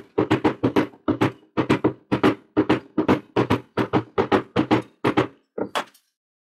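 Small hammer tapping the commutator of a rewound angle grinder armature resting on a steel block. Quick strikes, about four a second, each with a short metallic ring, stopping near the end.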